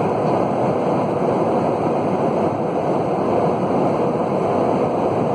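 Steady cabin noise of an airliner in flight: an even rush of air and engines, unchanging in level.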